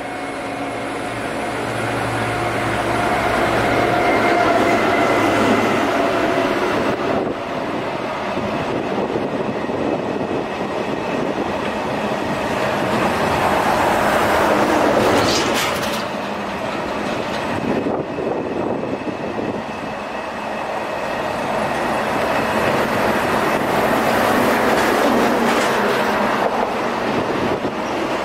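Freight train of covered cement hopper wagons rolling steadily past, the rumble and clatter of steel wheels on rail swelling and easing as the wagons go by. A thin wheel squeal runs through the first several seconds, and a few sharper knocks come about halfway through.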